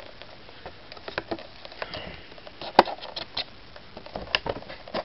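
Clear plastic amiibo blister packaging being handled and pried open: scattered light crackles and clicks, with one sharp click a little past halfway.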